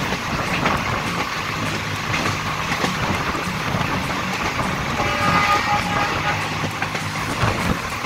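Passenger train running along the track, heard from an open coach door: a steady rumble of wheels on rails with wind rushing past. A brief high tone sounds about five seconds in.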